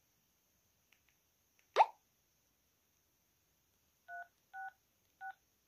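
A sharp click a little under two seconds in, then keypad tones from the JiSED A1 fidget spinner phone: three short beeps about half a second apart near the end, each two tones sounding together, the dialing tones of its number keys being pressed.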